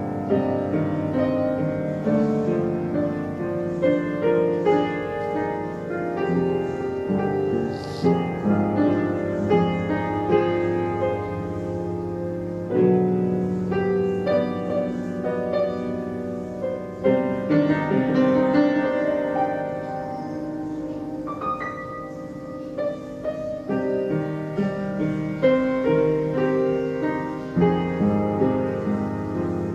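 Background piano music, a slow melody with held chords.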